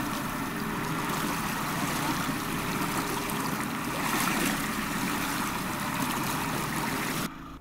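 Steady outdoor rushing noise of water and wind with a faint steady hum underneath; it cuts off abruptly near the end.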